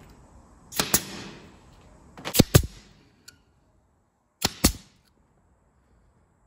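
Pneumatic nailer firing into plywood cabinet panels: three sharp double snaps about a second and a half apart, the middle one loudest.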